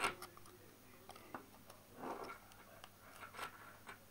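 Faint handling sounds of a laptop hard drive and a plastic SATA-to-IDE adapter being lined up by hand: a sharp click at the very start, then scattered light clicks and two short rustles.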